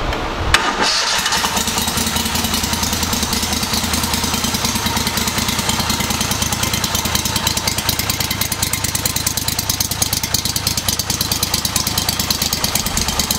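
A 40 HP Mud Buddy HDR surface-drive mud motor, a Vanguard EFI V-twin, starts about half a second in with a sharp crack and settles straight into a steady idle with an even, rapid exhaust beat.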